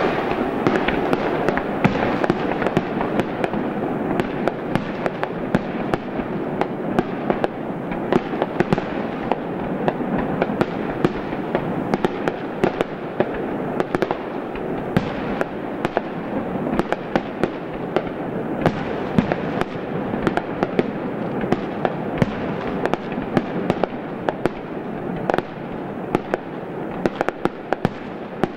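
Fireworks display: aerial shells bursting one after another, a steady run of sharp bangs and crackles over a continuous rumble.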